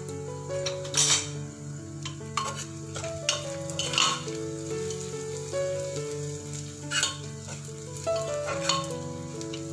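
Metal spoon stirring and scraping chopped small onions and spice powders frying in oil in an aluminium pressure cooker, with a sizzle. The spoon scrapes the pot about six times.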